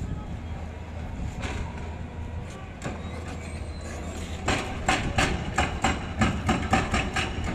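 Heavy machinery at a demolition site: a steady low diesel drone from the excavators. About halfway through, a rapid run of sharp knocks begins, about four or five a second, and it is louder than the drone.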